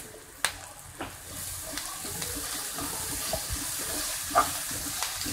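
Raw banana pieces frying in a non-stick pan, stirred with a wooden spatula: a sizzling hiss that builds from about a second in, with a few sharp taps of the spatula.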